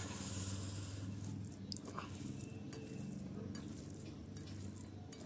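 Bare fingers mixing boiled pork fat and rice on a steel plate: soft squishing with a few small clicks, over a low steady hum.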